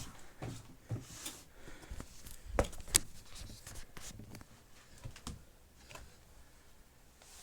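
Scattered light clicks and knocks of objects being handled, with two sharper knocks close together near the middle; no vacuum motor is running.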